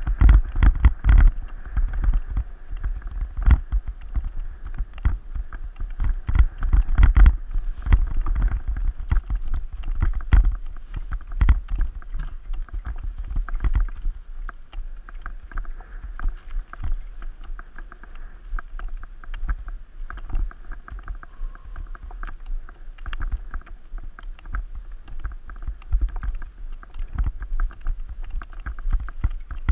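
Mountain bike rattling over a rough forest singletrack: a steady low rumble with frequent irregular knocks and clatters as the wheels hit roots and rocks. It is heard from a camera mounted on the bike, which picks up the frame's vibration. The knocks are loudest and most frequent in the first dozen seconds and lighter after that.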